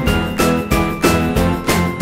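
Background music with a steady beat and a bright, bell-like melody.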